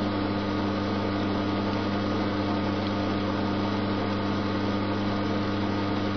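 Schaublin 102 toolmaker's lathe running steadily: an even motor hum with no change in speed as the spindle turns a shaft against the live centre.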